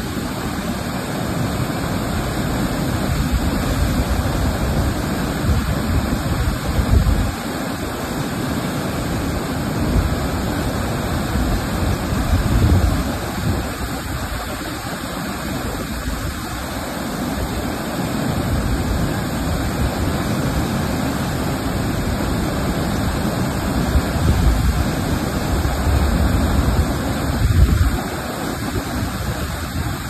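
A tall waterfall in heavy flood flow gives a steady, loud rushing of water crashing into its plunge pool. Wind gusts on the microphone a few times, strongest near the end.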